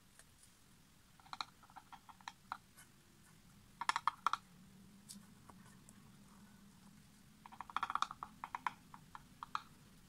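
Metal palette knife scraping and tapping around the edges of a paint-covered coaster: short runs of quick clicks in three bursts, the loudest about four seconds in.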